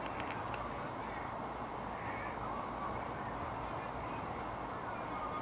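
Steady, high-pitched trill of night insects over faint low background noise.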